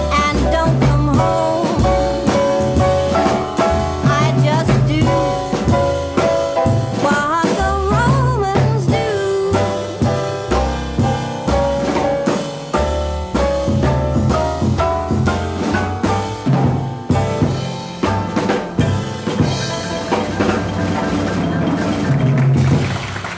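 Background music: an upbeat tune with a drum kit, a pulsing bass line and a melody line, starting to fade out at the very end.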